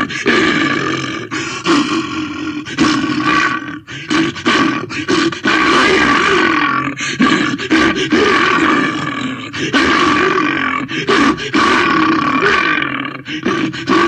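Bear roaring and growling film sound effect: a string of loud, rough roars, each a second or two long with brief breaks between them.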